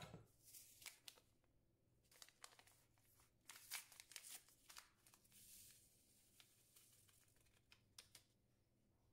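A small packet of vanilla sugar being torn open, crinkled and shaken out: faint rustling and a run of sharp little crackles.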